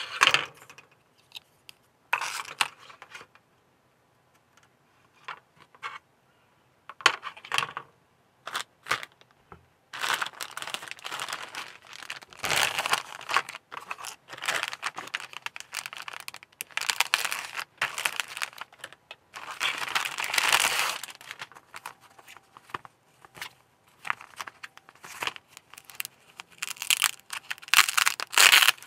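Clear plastic bag and thin foam sheet wrapping crinkling and rustling as a model kit's plastic parts sprue is unwrapped, in busy bursts from about a third of the way in. Before that come scattered light clicks and taps of plastic parts and small wooden clothespins being handled.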